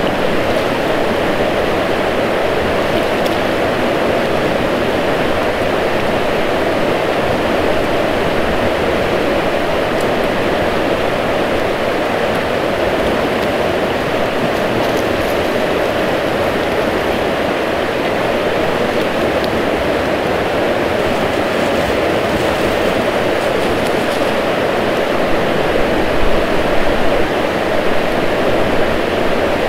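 River rapids rushing steadily, a loud, even sound of running water.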